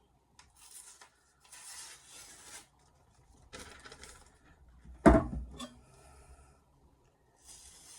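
Freshly stropped 210 mm Misono Japanese knife slicing through paper in several quiet strokes of about a second each, with one sharp knock about five seconds in. The quiet cut is the sign of a clean, burr-free edge.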